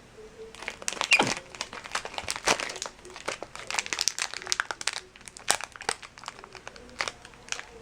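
Snack-bar wrapper crinkling and crackling in irregular bursts as a monkey handles and pulls at it to open it.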